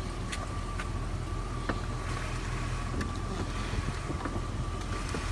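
1999 Jeep Grand Cherokee's 4.7-litre V8 idling steadily, without the stutter that the owner is chasing and blames on a possibly dragging power steering pump. A thin steady high tone and a few light clicks sit over the engine.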